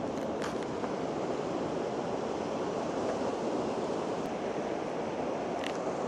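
Steady rushing of a mountain stream over rocks, an even hiss, with a couple of short faint clicks about half a second in and near the end.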